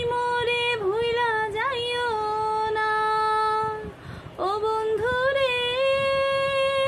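A woman singing unaccompanied, holding long wordless notes with small melodic turns. She breaks off briefly about four seconds in, then takes up another long held note.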